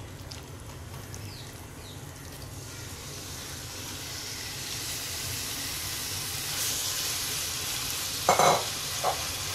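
Marinated chicken strips sizzling in hot oil in a kadhai, the sizzle building and growing louder as the pieces spread through the oil. Near the end a plastic spatula stirs and scrapes against the pan twice.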